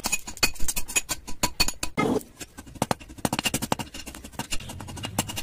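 A steel rod scraped and tapped rapidly along the edge of a hand-forged date-palm tapping knife blade, giving an irregular run of short metallic clicks and scrapes.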